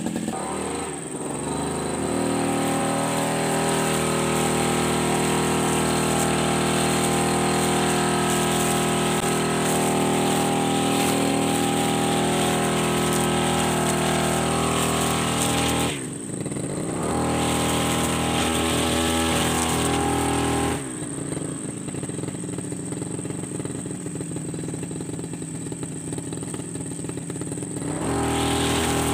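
Petrol brush cutter engine running at high revs while cutting long grass and weeds. The throttle eases off briefly about halfway through, then drops back to a lower, idling note for several seconds before opening up again near the end.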